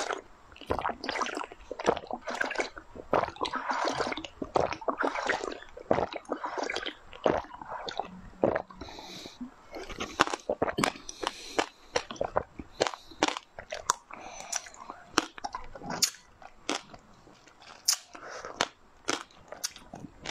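Close-miked mouth sounds of a person eating a soft yellow jelly-like dessert: sucking it out of glass tubes, then chewing it with many irregular wet clicks and smacks.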